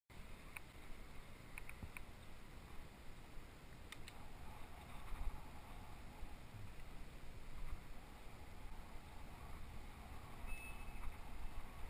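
Steady wind noise on the microphone of a camera riding on a moving bicycle, with tyre rumble on pavement and a few light clicks and rattles from the bike.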